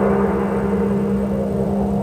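Home-made dark ambient music track: a steady low drone with a rumbling undertone, fading slightly.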